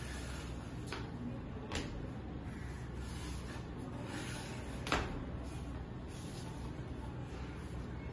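A few sharp snaps and slaps from a karate kata being performed: the movements of strikes and stances. The loudest comes about five seconds in. A steady low hum runs beneath.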